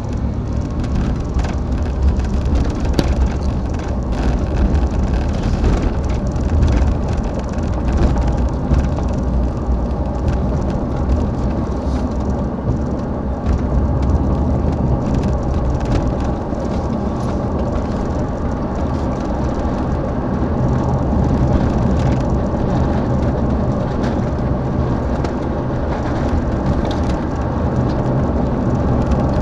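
An engine running steadily, a continuous low rumble with a few faint knocks and rattles.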